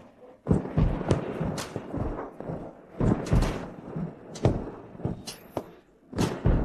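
A series of about six dull thuds and impacts at irregular intervals, with short quiet gaps between them.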